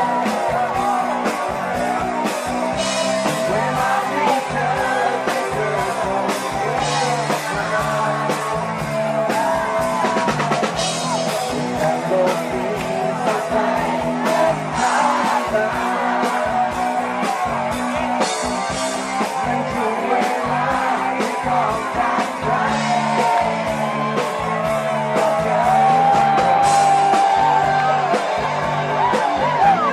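Live rock music: a singer's voice gliding over a full band with a steady drum beat.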